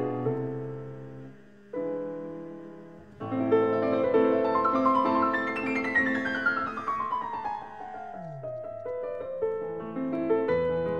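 Background piano music: held chords that fade, then a fast run of notes falling in pitch about six seconds in.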